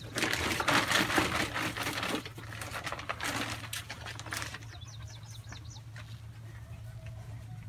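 Close rustling and scuffling noise for the first couple of seconds, then a bird gives a quick run of about six short, high chirps.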